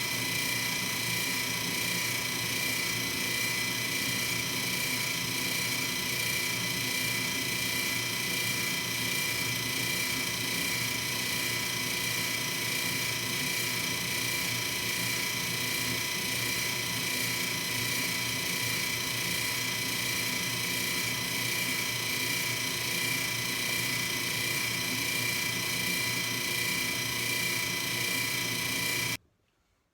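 Metalworking machine tool running steadily with a constant gear whine while machining a new nut. The sound stops abruptly near the end.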